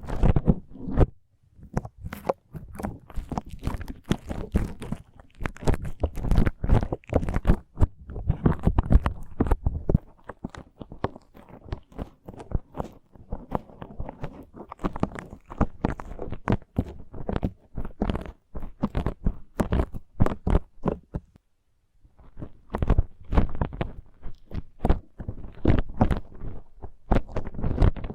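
Slime squished and pressed against an ASMR microphone's ear in ear-cleaning style: a dense run of sticky crackles and pops, pausing briefly about three-quarters of the way through.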